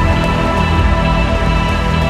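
Background music with held chords over a steady bass.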